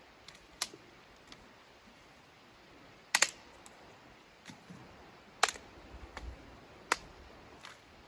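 Sharp clicks and snaps from a folding camp chair's frame as it is opened out and set up. There are several separate clicks, the loudest a quick double click about three seconds in and single ones at about five and a half and seven seconds.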